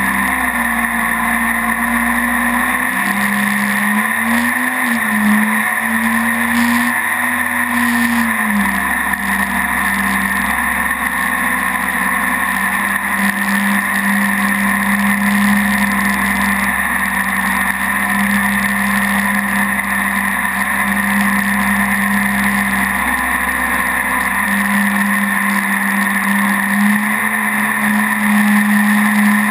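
Mini jet boat's engine running steadily as the boat travels, over a constant rushing noise. Its pitch shifts up and down a little in the first several seconds, then holds steady.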